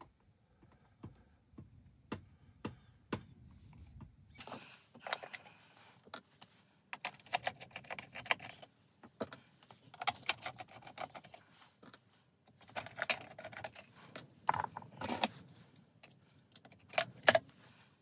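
Hard plastic clicking and rattling in bursts as the lens-and-reflector plate is worked off the front of an LED PAR can. The first few seconds hold only a few faint ticks.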